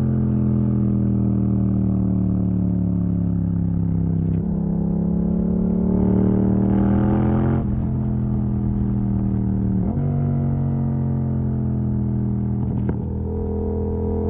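Yamaha MT-07 parallel-twin engine running loud through an exhaust with its dB killer removed, riding under load. The engine note drops abruptly about four times as gears are changed with the quickshifter.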